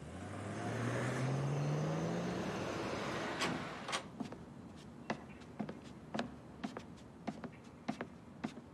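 A motor vehicle engine accelerating, its note rising steadily for about three seconds before fading away. After it, a string of light footsteps.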